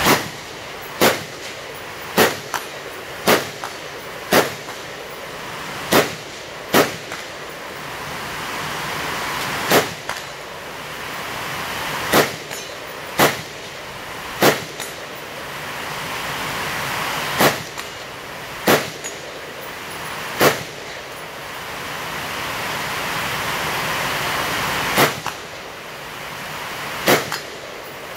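AR-style rifle fired in single shots at uneven gaps of one to five seconds, about sixteen in all, over a steady hiss.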